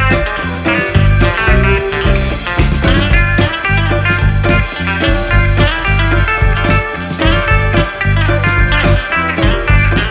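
Guitar-led blues-rock music with a steady beat and heavy bass.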